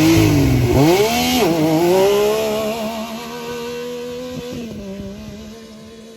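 Yamaha YXZ1000R side-by-side on its stock exhaust launching hard from a standstill and accelerating away. The three-cylinder engine revs up, with the pitch dropping and climbing again at two quick upshifts in the first two seconds, then keeps pulling as it fades into the distance.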